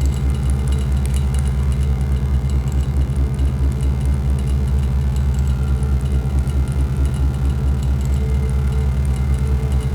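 Synthesizer noise drone: a dense, steady low drone with a fast, rough flutter, and a thin layer of noisy texture above it.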